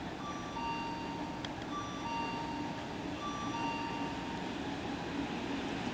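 Station platform train-approach warning chime: a two-note electronic signal, a short higher note then a longer lower one, repeating about every second and a half, over the low rumble of a train coming in.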